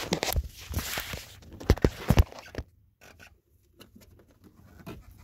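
Plastic clicks and knocks of a relay being pushed into its socket under a truck's dashboard, the loudest three close together about two seconds in, then only faint taps.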